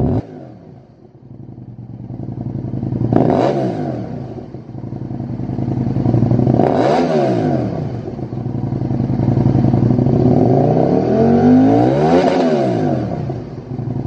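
Aprilia RSV1000's 60-degree V-twin through a Lextek SP8C carbon-fibre slip-on silencer, idling low and revved three times. There is a short blip about three seconds in, another about seven seconds in, and a longer rev near the end, each rising and falling back to idle.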